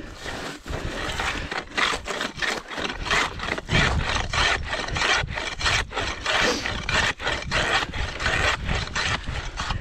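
Hand ice saw cutting through lake ice in repeated rasping strokes, about two a second. A low rumble joins from about four seconds in.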